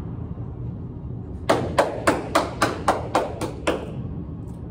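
A rubber handball bounced on the court floor by hand, about nine even bounces in a little over two seconds starting about a second and a half in, each echoing off the court walls.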